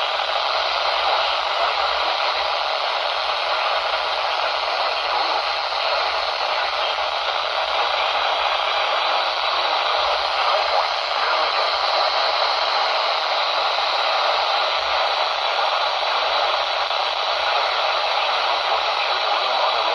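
Steady hiss of static from a weather radio receiver, an even band-limited noise with no broadcast voice or alert tones coming through.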